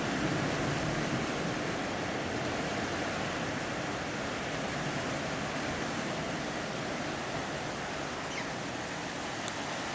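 Steady hiss of falling rain, with a few faint drip-like ticks near the end.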